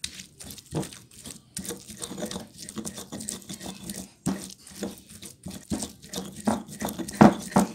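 Stone pestle grinding shallots, garlic, ginger and candlenuts into a wet paste against a stone mortar (ulekan and cobek): irregular scraping, crunching strokes with a few sharper knocks.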